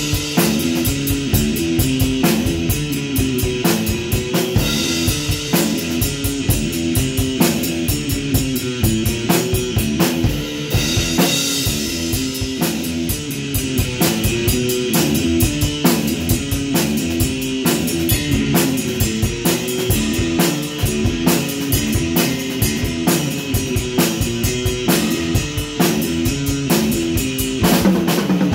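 Electric guitar playing a repeating riff over a rock drum kit beat, with kick, snare and cymbals keeping steady time.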